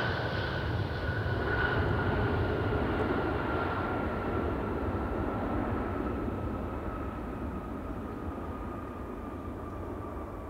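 Boeing 777-200ER jet engines during landing rollout: a steady rumble with a whine that slowly falls in pitch. The sound is loudest about two seconds in and fades gradually as the airliner slows and moves away.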